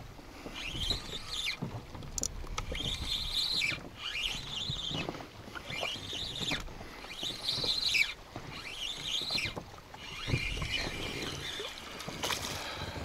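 Spinning reel being cranked to bring in a hooked small zander, a whirring that rises and falls in pitch about once a second in steady turns, with a few sharp clicks over a low wind and water rumble.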